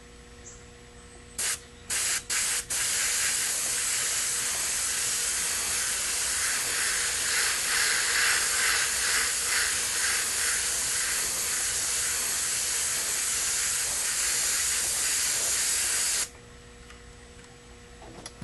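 Aerosol spray paint can hissing: four short puffs, then one long continuous spray of about thirteen seconds that cuts off suddenly, as paint is sprayed through a mesh stencil for a carbon-fibre pattern.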